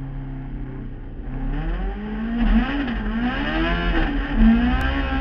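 Race car engine heard from inside the cabin, holding a steady note at first, then revving up about a second and a half in and rising and dipping in pitch as the throttle opens and eases on track.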